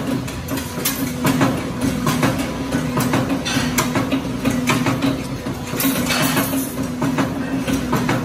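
Automatic rebar stirrup-bending machine running: a steady motor hum under frequent sharp clacks and knocks as the steel bar is fed through the rollers and bent.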